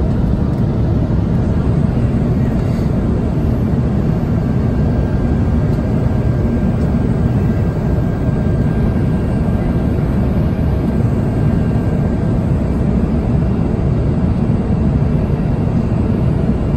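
Steady airliner cabin noise during the descent to land: a low, even rumble of engines and rushing air. A faint thin whine sounds for a few seconds in the middle.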